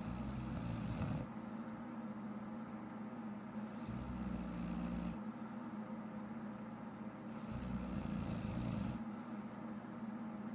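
A woman snoring in her sleep: three snores about every three and a half seconds, each lasting a little over a second, a low snore with a breathy hiss on top.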